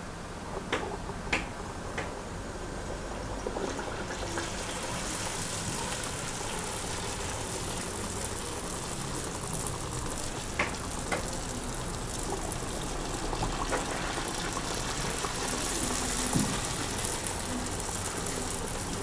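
Raw dough pieces deep-frying in hot oil in a pan: after a few light clicks, a steady sizzle starts about four seconds in and holds.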